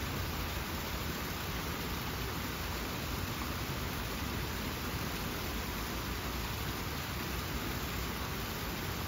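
Fountain water falling over sculpted rockwork, a steady, even rush of splashing.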